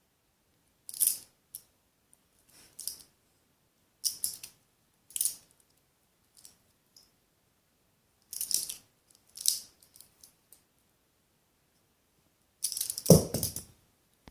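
Butterfly knife (balisong) handles and blade clicking and clacking as it is tossed open and caught, in short separate clatters, several in pairs about a second apart. Near the end comes a louder clack with a low thump.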